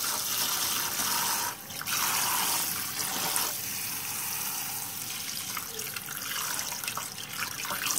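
Tap water pouring into a stainless steel bowl of basmati rice in a sink while a hand swishes and rubs the grains to wash off the starch. About three and a half seconds in the pouring stops, leaving splashing and dripping as handfuls of wet rice are lifted and let fall back into the water.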